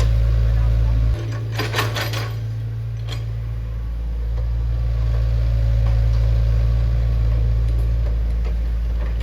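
Heavy machine's engine running with a steady low drone, which drops suddenly about a second in and builds back up from about four seconds in. A brief rattle of metallic clanks comes just after the drop, and a single knock about three seconds in.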